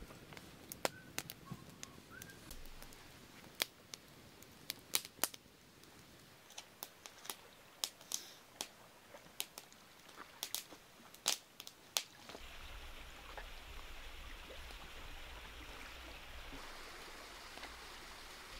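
Wood campfire crackling, with sharp irregular pops for about twelve seconds. After that a steady rushing noise takes over.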